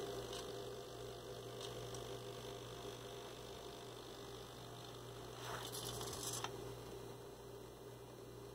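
Quiet, steady low electrical hum with faint hiss, and two faint soft swells of noise about five and a half and six and a half seconds in.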